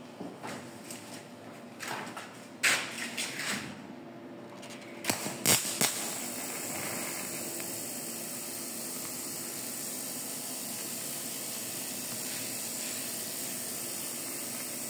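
A few sharp metallic knocks in the first half. Then, from about six seconds in, the steady hiss of a TIG welding arc burning on the frame's steel joint as filler rod is fed in.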